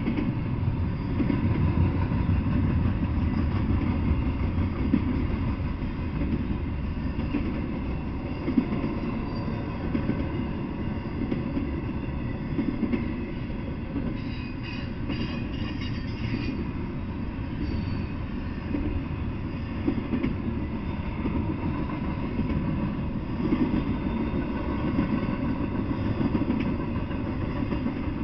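Double-stack intermodal freight train's well cars rolling past: a steady rumble of steel wheels on rail with occasional knocks. About halfway through there is a brief, faint high-pitched squeal.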